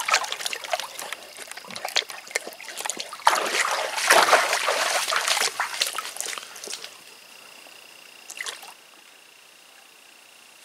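An Australian Shepherd and a chocolate Labrador wading in a shallow creek, splashing and sloshing the water, loudest about three to five seconds in. The splashing stops about seven seconds in, leaving a faint steady high tone.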